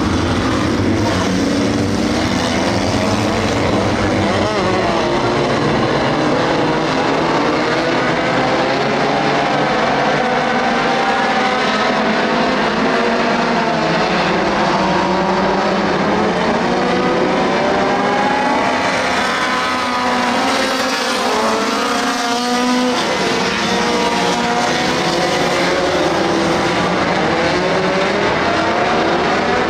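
A field of small dirt-track stock cars running laps together, many engines overlapping, their pitches rising and falling as the cars pass through the turns.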